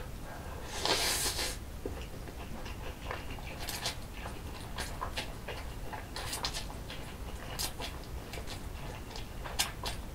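A person slurping a mouthful of spicy stir-fried instant noodles, with a short loud slurp about a second in, then chewing with many irregular wet clicks and smacks.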